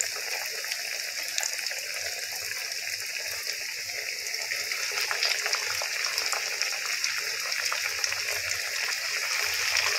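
Breadcrumb-coated fish fillets deep-frying in hot oil, a steady sizzle full of fine crackles. Another fillet is slipped in about four seconds in, and the sizzle grows a little louder after that.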